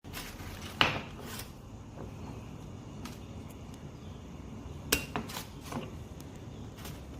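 Parts of an aluminium Bialetti Moka Express stovetop coffee maker being handled, giving metallic clinks and knocks. Two louder knocks come about a second in and just before five seconds, with several lighter taps between and after, over a steady low hum.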